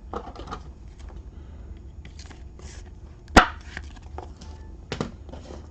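Trading cards being handled on a table: soft rustling with a sharp tap a little past halfway and a lighter one near the end, over a low steady hum.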